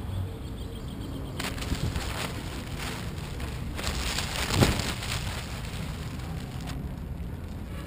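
Wind rumbling on the microphone, with crinkly rustling of the kite's canopy fabric that starts about a second and a half in and is loudest around the middle, with one sharper crackle.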